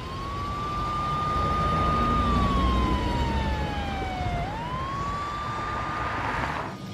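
Police siren wailing over the low rumble of vehicle engines. A single tone rises and holds, slides slowly down, then sweeps back up about four and a half seconds in and holds again.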